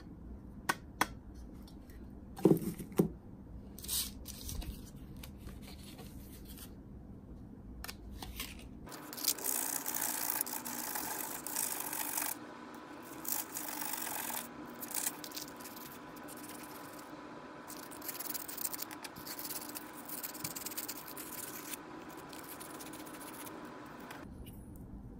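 A brass pen tube rubbed back and forth on sandpaper: a steady rasping scrape for about fifteen seconds, scuffing the tube so the glue will grip. Before it, a few knocks and clicks as bottles and parts are handled and set down on the table.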